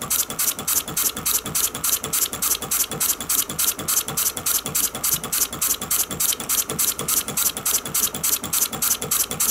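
Home-built horizontal true diesel model engine (20 mm bore, 40 mm stroke, burning a kerosene and lamp-oil mix) running steadily, with an even, rapid mechanical beat of about five strokes a second.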